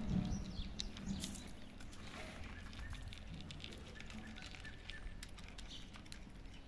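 Several cats eating dry kibble from plastic plates: soft, irregular crunching and small clicks of the pellets.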